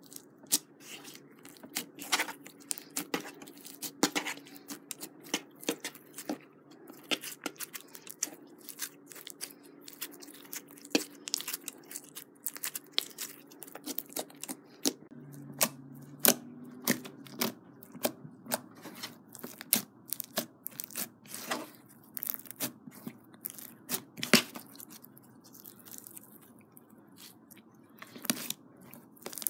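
Clear glitter slime mixed with small foam beads being pressed, squished and kneaded by hand. It makes irregular sticky crackles and crunchy pops, several a second.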